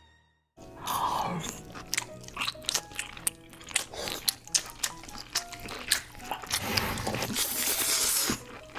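Close-miked eating of king crab: sharp crunching and smacking clicks, several a second, with chewing between them, and a longer hissing slurp near the end as meat is sucked from a leg.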